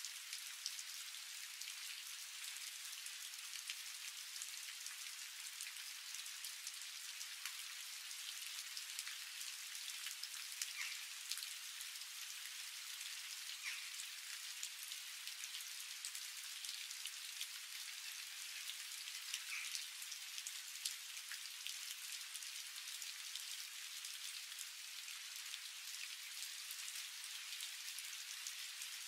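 Idli cubes with onion and curry leaves sizzling in oil in a frying pan: a steady hiss dotted with small crackles and pops.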